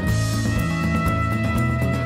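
Instrumental background music with a steady beat and held notes.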